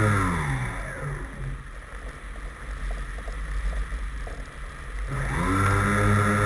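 Electric RC airplane motor and propeller throttling down until it nearly stops, winding back up about five seconds in, and settling into a steady high-speed whine.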